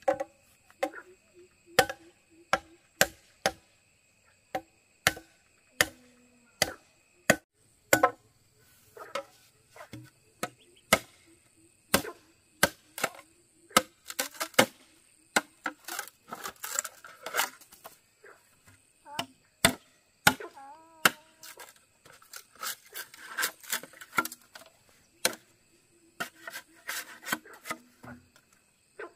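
Bamboo being chopped with a blade: sharp, irregular strikes, about one or two a second at first, then quicker runs of blows about halfway through and again near the end.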